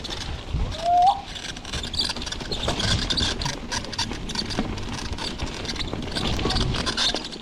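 Mountain bike riding down a dirt trail: a steady rush of wind on the microphone over the rattle and clatter of the bike and tyres. About a second in there is a short rising squeal.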